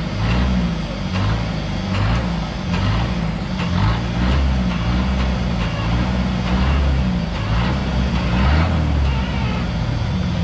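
Off-road 4x4 engine running under load, its revs rising and falling again and again as the truck crawls over rough ground.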